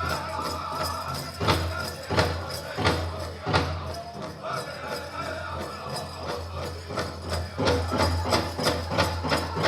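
Powwow drum group singing over a big drum, with a few loud accented drum beats about two seconds in; the drumming grows louder and denser near the end.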